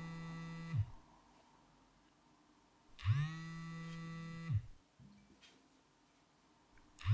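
Smartphone vibrating on a table. It buzzes in pulses about a second and a half long, each rising quickly in pitch as the motor spins up and dropping as it stops, and repeating about every four seconds in the pattern of an incoming call. One pulse ends just after the start, a full one comes a few seconds in, and the next begins at the very end.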